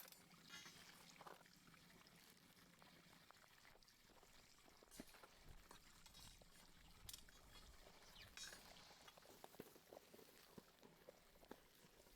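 Near silence, with faint scattered clicks and light scrapes, more of them near the end.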